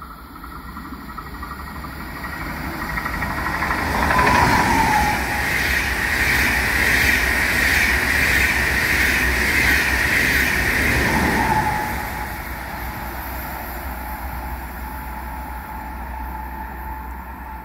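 ICE high-speed train passing through on the near track. It grows louder as it approaches, then the rolling wheel-on-rail noise stays loud for about eight seconds before fading as it recedes. A whine drops in pitch as the front goes by, and another comes as the rear goes by.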